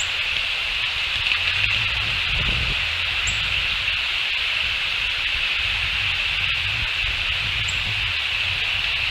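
Outdoor ambience picked up by an eagle nest camera microphone: a steady high hiss with a low rumble underneath, and three faint, short high chirps from a small bird, spread about four seconds apart.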